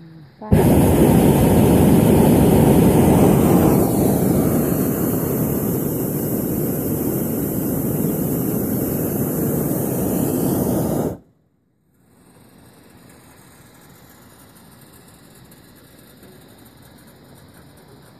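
Hot air balloon's propane burner firing in one long, loud blast of about ten seconds that cuts off abruptly, followed by faint steady background noise.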